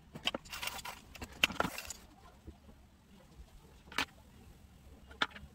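Drawing pencil scratching on paper in a run of quick strokes, then two sharp clicks, about four and five seconds in.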